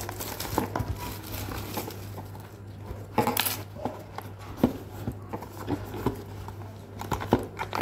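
Clear plastic wrapping crinkling and a cardboard retail box being handled and turned over, with irregular small taps and rustles and a louder rustle a little after three seconds. A low steady hum runs underneath.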